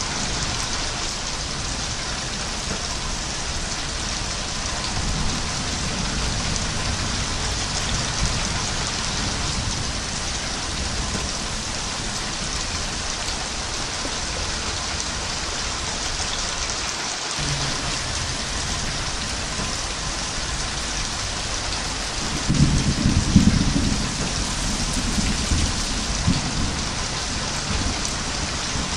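Steady rain falling, an even hiss. About two-thirds of the way through, a low rumble of thunder swells for a few seconds and fades back into the rain.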